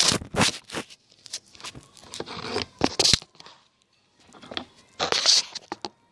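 Close-up handling noise of slime containers being moved and opened: a series of sharp clicks, crinkles and scrapes, with a pause of about a second midway.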